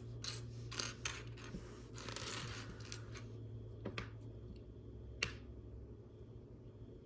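Small plastic Lego pieces clicking and clattering as they are sifted through by hand, with a denser rattle about two seconds in and a few single sharp clicks later.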